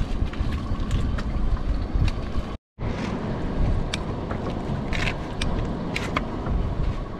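Small fishing boat's engine running under a steady rumble of wind on the microphone, with scattered knocks and rattles from a crab pot being handled. The sound cuts out for a moment about two and a half seconds in.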